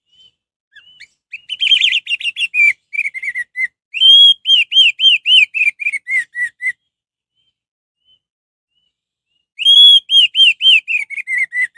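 Orange-headed thrush singing loud, clear whistled notes in rapid runs, each run stepping down in pitch. The song stops for about three seconds and then starts a last run near the end.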